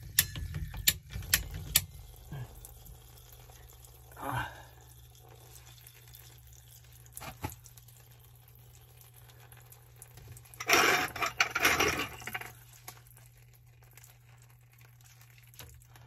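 Leftover standing water draining out of a freshly cut PVC water line and splashing onto rags, in spells rather than a steady flow. A few sharp clicks and knocks in the first two seconds, and a louder splashing rush of about two seconds near the end, over a steady low hum.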